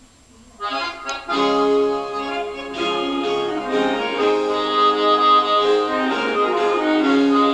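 Accordion-led music that begins about half a second in, after a brief gap, with held chords at a steady level.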